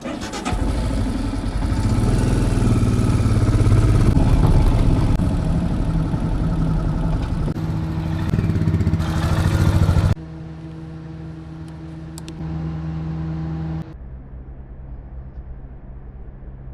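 Motor vehicle engine running on the move, its pitch rising and falling. The sound drops suddenly to a lower, steadier hum about ten seconds in and again near the end.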